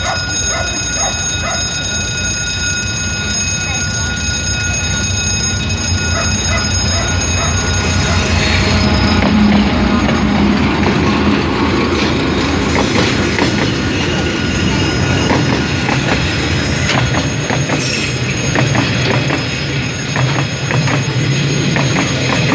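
Vietnam Railways D12E diesel locomotive passing close by with its engine running, loudest about ten seconds in, followed by container freight wagons rolling past with their wheels clicking over the rail joints.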